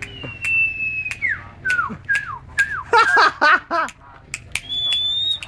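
Caged sirpu jawa songbird singing: a long slightly falling whistle, then a run of short down-slurred whistled notes and a fast jumble of notes, ending on a steady high whistle, with sharp chip-like clicks between phrases.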